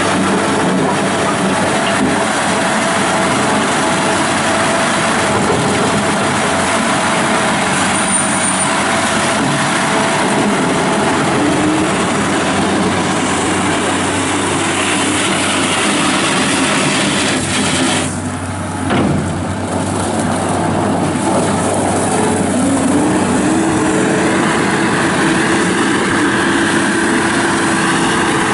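1998 New Holland LX665 skid steer loader's turbo diesel engine running steadily while the machine is operated. About two-thirds of the way through the sound briefly drops, then the engine note rises and holds higher.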